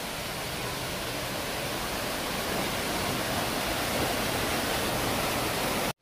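Water of a rocky cascade waterfall rushing down over boulders: a steady, even rush that cuts off suddenly near the end.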